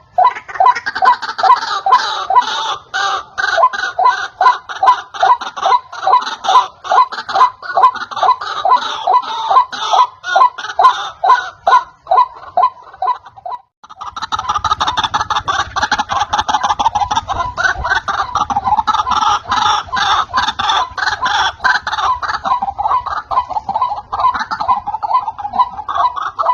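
White-breasted waterhen calling in a rapid, steady run of repeated croaking notes, several a second. The calls break off for a moment about halfway through, then carry on more densely.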